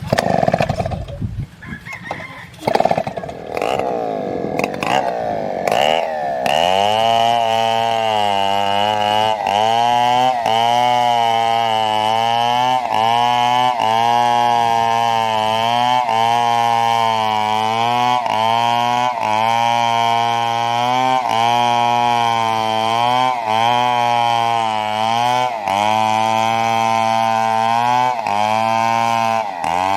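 A two-stroke chainsaw cutting a fallen coconut trunk. From about six seconds in it runs steadily at high speed, its pitch dipping briefly every second or so as the chain bites into the wood.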